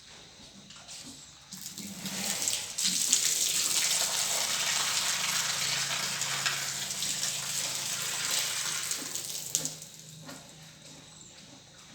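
Water running in a steady stream. It starts about two seconds in and stops shortly before the end, with a faint low hum under it in the second half.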